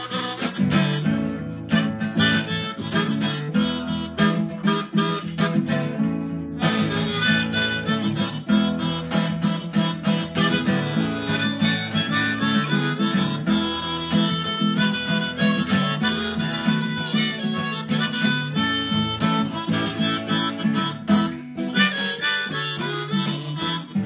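Harmonica solo played over a strummed Takamine acoustic guitar, a blues instrumental break with no singing.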